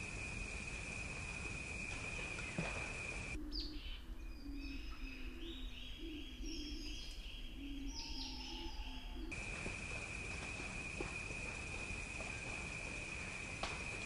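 Wild bird sounds: a steady high-pitched drone over a hiss gives way, from about three and a half to about nine seconds in, to several birds calling, with quick rows of repeated chirps and low calls, before the steady drone returns.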